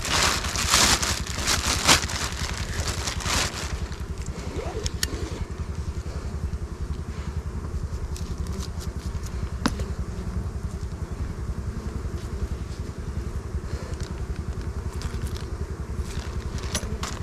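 An engine running steadily at an even low pulse, with crackling and rustling over it for the first three or four seconds and a single sharp click near the middle.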